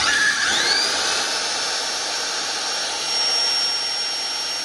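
Hitachi 100 V, 350 W hammer drill switched on and run with no load: the motor spins up with a rising whine in the first second, then runs steadily at full speed.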